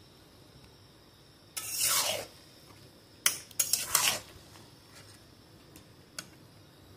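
A metal spatula scraping and clinking against a kadai while mixing cooked mango pulp: one scrape about one and a half seconds in, then a quick run of scrapes and clinks about a second later.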